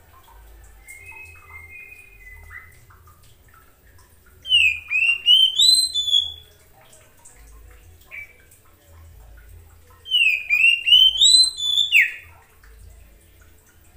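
Oriental magpie-robin singing: two loud phrases about six seconds apart, each a quick run of short slurred whistles that climb in pitch, with a few softer notes between them.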